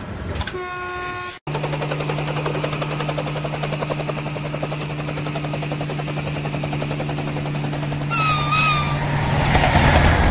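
Electric train passing close by at a railway station: a steady electric hum with rapid, even clatter from wheels and rails. A short wavering high tone sounds near the end, and then the rushing noise of a fast train swells up.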